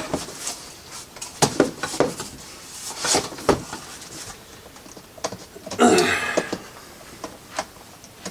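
Packaging and hard plastic prop parts being handled while a box is unpacked: scattered knocks and clicks, with a longer rustle about six seconds in.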